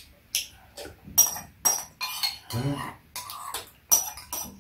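Metal spoons clinking and scraping against ceramic bowls as two people eat: a string of sharp, bright clinks about every half second.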